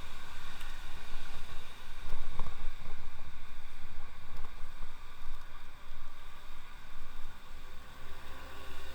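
Wind rumbling and buffeting on the microphone of a moving electric bicycle, uneven in strength, with a faint steady high whine underneath.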